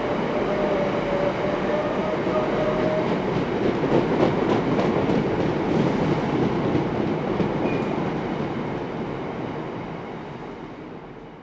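Covered hopper wagons of a freight train rolling past with a steady rumble and clatter. A thin squeal sounds in the first few seconds, and there are clicks over rail joints in the middle. The sound fades away as the last wagons pass near the end.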